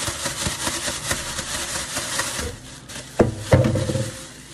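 Plastic bag rustling and crinkling as it is shaken hard to coat chicken pieces in flour. The rustling eases off, then two loud, dull thumps come a little over three seconds in.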